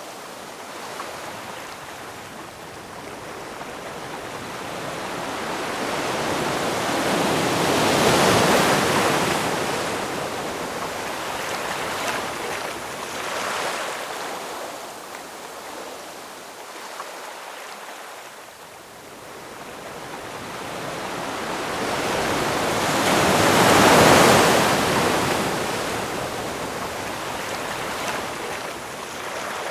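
Ocean waves washing on a shore, a steady rush of surf. Two bigger waves build up and break about 8 and 24 seconds in, with a softer wash between them.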